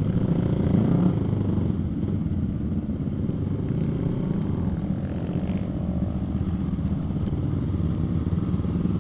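Motorcycle engine running steadily while riding, with a slight rise in pitch about five seconds in.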